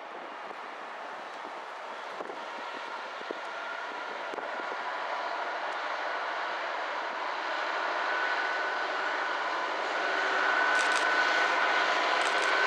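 A Class 66 diesel locomotive's two-stroke V12 engine approaching with an intermodal container train, growing steadily louder, with a steady whine over the engine noise.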